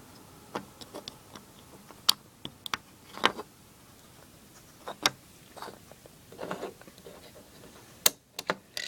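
Plastic Lego bricks clicking and rattling as they are handled and pressed together: irregular small clicks, with a few sharper snaps about two, three, five and eight seconds in.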